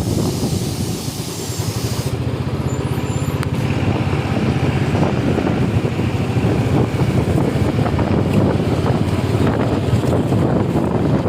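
Steady low rumble of a vehicle travelling along a road, with wind buffeting the microphone.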